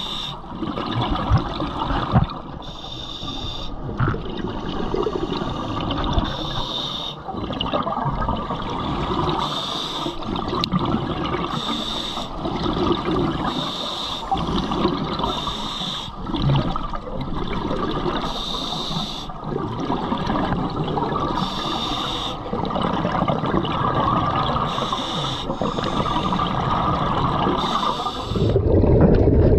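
A scuba diver breathing through a regulator underwater: a hissing inhale alternates with a bubbling exhale, in a regular cycle every two to three seconds.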